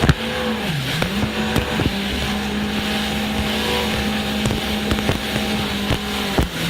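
Jet ski engine. Its pitch dips and comes back up in the first second and a half as the throttle is eased and reopened, then holds steady, with wind and water noise and a few knocks.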